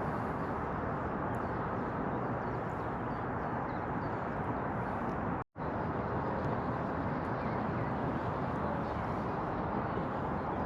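Steady outdoor background noise, a low even rumble with no distinct events. It drops to silence for a split second about halfway through.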